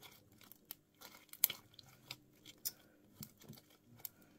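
Blue homemade glue slime being squeezed and folded in the hands, giving off irregular sticky clicks and small pops, the sharpest about one and a half seconds in.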